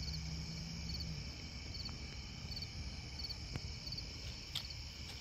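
Crickets chirping in short, evenly spaced high pulses over a low steady hum, with a couple of faint clicks in the second half.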